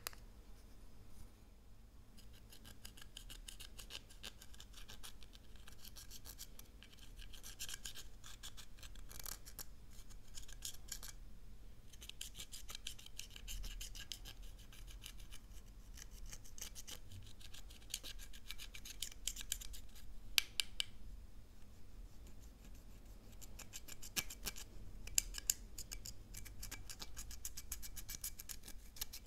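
Pressed glitter eyeshadow being scraped and crumbled with a small spatula in a plastic compact palette: fast, fine, gritty scratching, in spells with short pauses.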